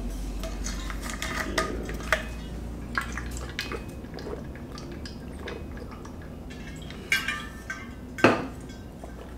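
An insulated water bottle being handled: scattered clicks and clinks of the lid and bottle, with a person drinking from it in the middle. Two sharper knocks come near the end, about a second apart.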